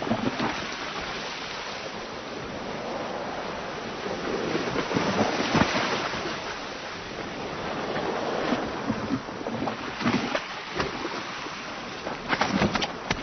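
Sea waves washing and slapping against the hull of a boat, in swells that rise and fall, with a burst of sharp splashes near the end.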